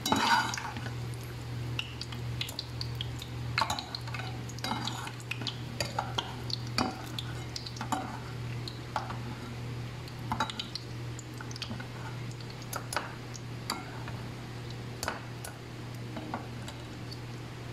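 Scattered clinks, knocks and scrapes of a metal utensil against a stainless steel pot and mesh strainer, over a steady low hum.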